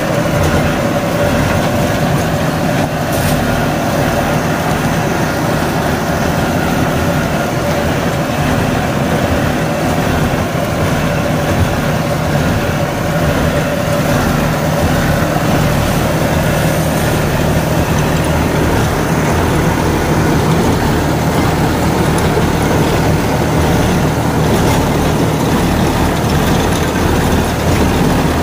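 Deutz-Fahr Agrolux 80 tractor's diesel engine running steadily under load, driving a Sakthiman Tusker rotavator through banana stalks.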